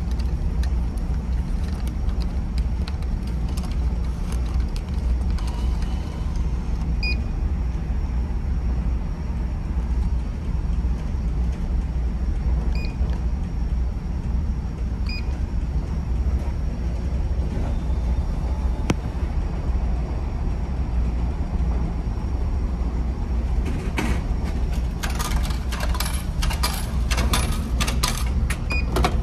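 Steady low rumble of a ferry under way. Over it come a few short electronic beeps from a vending machine's keypad, and near the end a quick run of clicks and rattles as the machine's delivery flap is handled.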